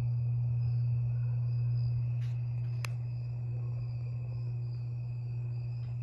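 52-inch Harbor Breeze Lakeside II ceiling fan running on low speed, its motor giving a steady low hum with a faint steady high-pitched ring over it. It runs slow on every speed setting because its capacitor is bad. A single sharp click comes about three seconds in.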